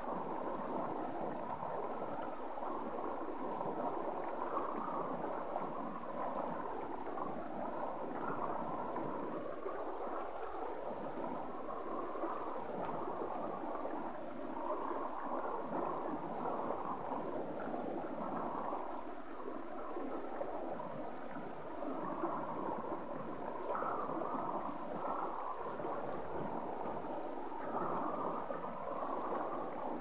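Shallow rocky stream running over stones and small riffles, a steady burbling rush of water. A thin, steady high-pitched hum runs underneath.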